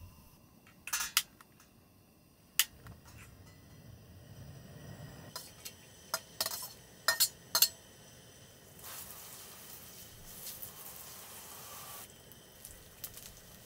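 Metal utensils clinking and knocking against pots and pans, several sharp clinks, then from about nine seconds in a steady sizzle of sliced garlic frying in olive oil.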